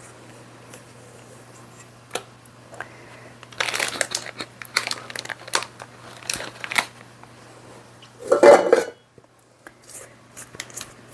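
Plastic zip-top bag crinkling as a rubber spatula scrapes thick frosting into it, with a dense run of crackles in the middle, then a louder thump about eight seconds in. A faint steady hum sits underneath.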